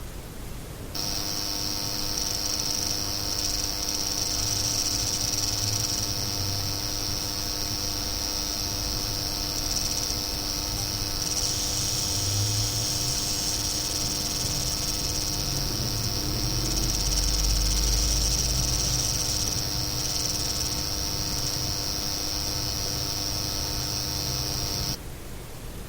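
Seasonic X-660 computer power supply buzzing and chattering with coil whine at near-idle load, its fan not running: a high, steady whine over several fainter steady tones, with a flickering chatter on top. It starts about a second in and cuts off suddenly near the end.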